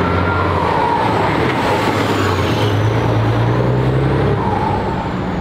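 Volvo truck tractor unit's diesel engine running steadily and loudly through its exhaust as it drives past, the engine note climbing slightly before easing near the end.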